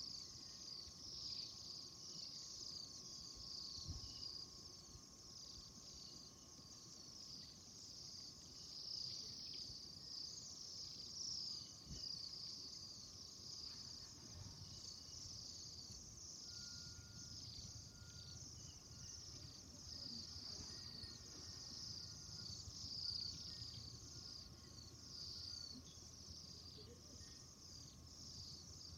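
A flock of small birds chirping, many high, short calls overlapping in a continuous chatter.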